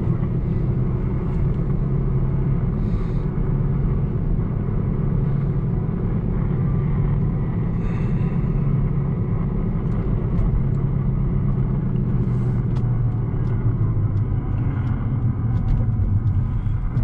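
Car being driven along a road, heard from inside the cabin: a steady low rumble of engine and tyre noise.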